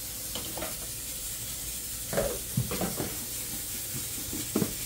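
Chicken frying in hot oil in a covered pot, a steady sizzle, with a few short knocks of a meat fork and plastic bowls around two to three seconds in and again near the end.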